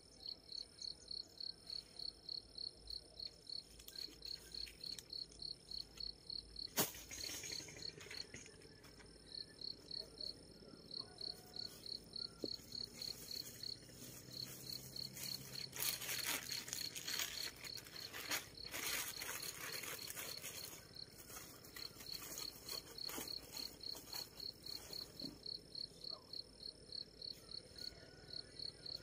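An insect chirping steadily in an even, high-pitched pulse, about three chirps a second. A sharp click about seven seconds in, and rustling from things being handled in the middle, partly cover it.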